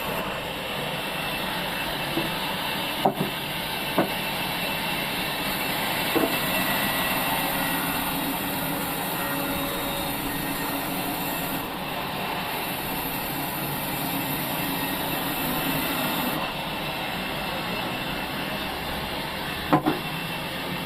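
Sawmill machinery running steadily, with a few sharp knocks of wood about 3, 4, 6 and 20 seconds in.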